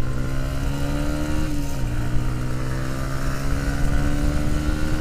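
Sport motorcycle engine accelerating hard, its pitch climbing steadily, dropping briefly at a gear change about a second and a half in, then climbing again. Steady wind noise runs underneath.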